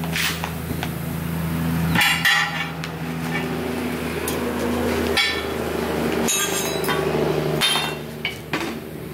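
Compressed air from a shop air hose blasting in bursts into a truck tyre on its steel rim while the bead is being seated, with several sharp metallic knocks and clinks. A steady low hum runs underneath.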